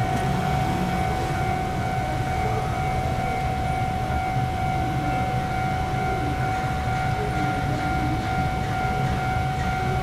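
Railway level crossing warning signal sounding a steady high tone while the barriers are down, over a low steady rumble.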